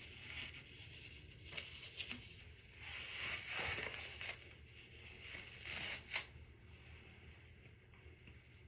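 Faint rustling and handling noise of a full-lace wig being pulled on and settled over the head, with a few soft clicks. It swells twice, about three seconds in and again near six seconds.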